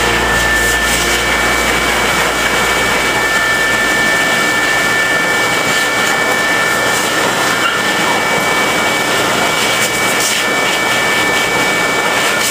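Pet grooming dryer blowing a steady rush of air through its hose, with a steady high whine over the noise.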